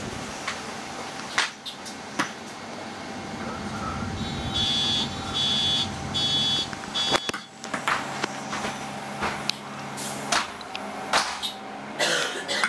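Interior of a Metronit articulated bus: a steady drive-motor hum with rattles and knocks from the body and fittings. About four and a half seconds in, four short high electronic beeps sound in quick succession.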